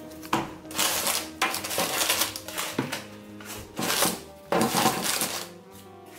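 Parchment paper rustling and crinkling in several irregular bursts as pastries are lifted off a lined baking sheet, with background music underneath.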